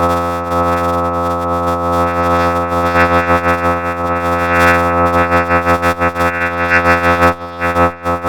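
Sustained synthesizer drone: a thick chord of many steady tones held unchanged, wavering in loudness, breaking up near the end.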